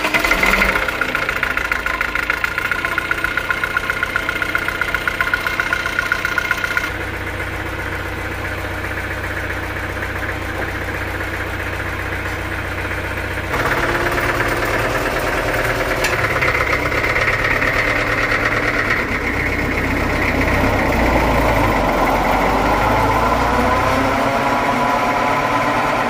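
Multi-cylinder sawmill engine running steadily, driving the mill through V-belts, pulleys and a drive shaft. The sound changes abruptly twice, and in the last several seconds a whine rises in pitch.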